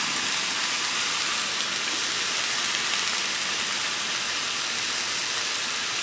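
Raw chopped beef sizzling steadily on a hot Blackstone flat-top griddle set to high.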